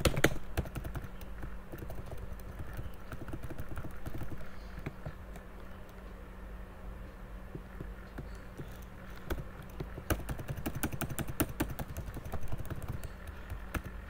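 Computer keyboard keystrokes, irregular clicking taps as keys are pressed, with a dense flurry of keypresses about ten seconds in. A faint steady hum runs underneath.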